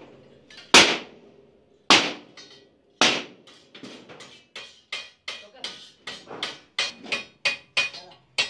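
Wooden mallet beating the folded edge of a galvanized steel sheet trunk: three heavy blows about a second apart, then a quicker run of lighter strikes, two to three a second, with a slight metallic ring.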